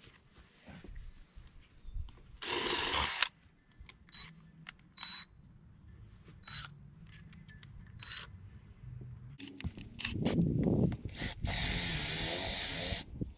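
Cordless drill running under load: a short burst about two and a half seconds in, a few brief blips, then a longer run of about three seconds near the end.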